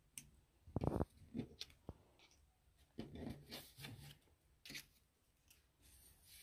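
Small collectible cards being set down and slid on a wooden tabletop: a scattering of short, light taps and scrapes, the loudest about a second in.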